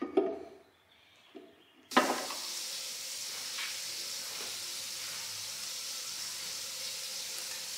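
A few knocks of the aluminium upper oil pan against the 2JZ engine block as it is lined up on its locating pins. About two seconds in there is a sharp clack, then a steady, even hiss.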